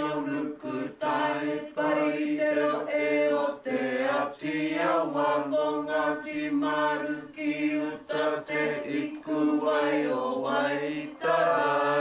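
A woman's voice performing a karanga, the Māori ceremonial call, in long held lines on a few pitches broken by short breaths, with a long sustained note near the end.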